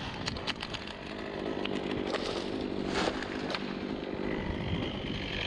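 Chainsaw running steadily, after being revved up and down, with a run of sharp clicks and cracks in the first three or four seconds.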